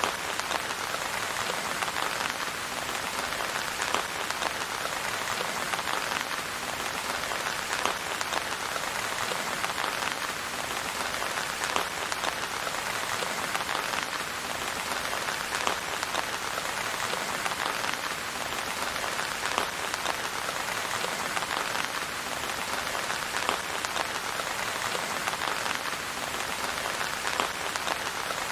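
Steady rain falling, an even hiss of rainfall with many small individual drop hits throughout and no thunder.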